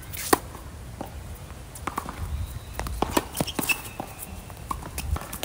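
Tennis rally on a hard court: a racket strikes the ball on a flat serve, a sharp crack about a third of a second in, followed by more racket hits, ball bounces and footsteps on the court.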